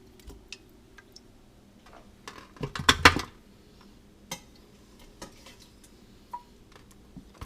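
Kitchen utensils and dishes clinking and clattering as cooked squirrel pieces are lifted out of an Instant Pot into an oven dish, with a louder clatter about three seconds in, over a faint steady hum.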